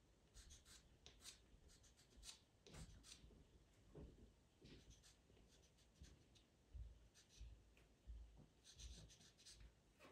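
Pastel pencil scratching over PastelMat pastel paper in quick short strokes, in faint bursts of several strokes at a time, with a few soft low thumps.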